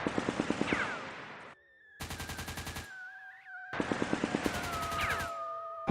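Rapid automatic-gunfire sound effect, about ten shots a second, in three bursts that cut off abruptly, with falling whistling tones over it. The rate and the hard edits mark it as an edited intro effect, not the pump-action shotgun itself.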